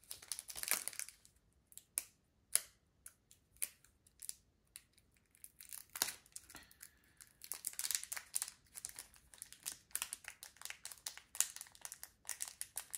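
Foil booster pack wrappers crinkling and tearing while trading cards are handled, in a string of short crackles and snaps.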